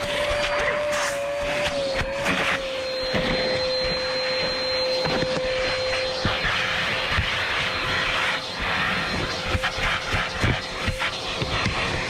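Vacuum cleaner running, with a steady motor whine and a rushing hiss of air through the nozzle, as it sucks debris out of a car's interior. Short clicks and knocks run throughout as bits are picked up. The whine weakens about halfway through.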